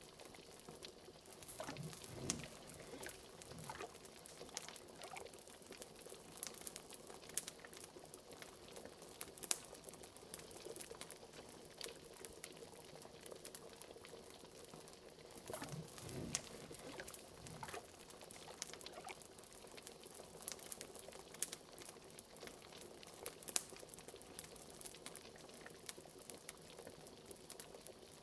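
Liquid bubbling steadily in a pot, standing in for a bubbling cauldron: a constant stream of small pops, with larger bubbles gulping up about two seconds in and again around sixteen seconds.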